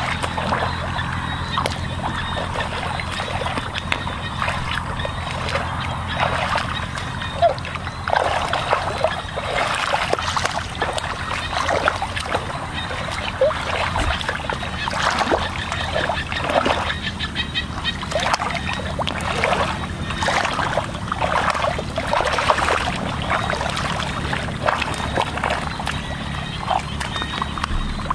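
Hands and bodies sloshing through shallow muddy water, with irregular splashes throughout as hands grope through the mud for fish, over a steady low hum.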